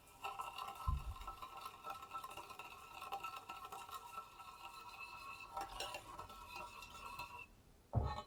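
A utensil stirring in a bowl, scraping and clinking steadily with a ringing tone from the bowl, stopping sharply near the end. There is a dull knock about a second in and a louder knock just after the stirring stops.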